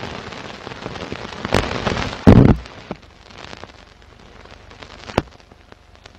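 Old worn-film soundtrack noise: hiss and crackle with scattered pops, and a heavier thump a little over two seconds in, after which the hiss falls to a fainter crackle.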